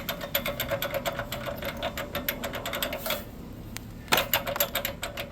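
Ratchet clicking rapidly and evenly while turning a spark plug socket. It stops for about a second partway through, then starts again.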